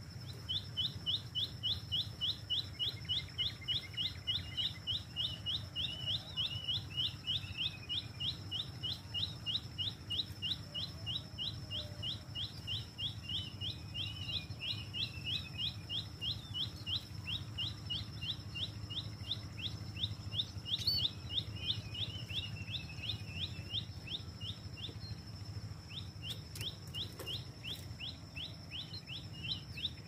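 Small bird chirping: a fast, even string of short high chirps, several a second, that breaks off briefly about 25 seconds in and then resumes. A faint steady high tone runs underneath.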